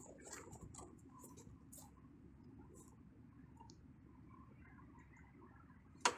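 Faint outdoor background with scattered light clicks, and one sharp, loud click about six seconds in.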